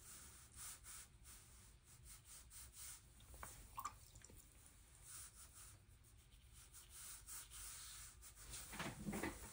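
Near silence: room tone with a few faint small clicks and rustles.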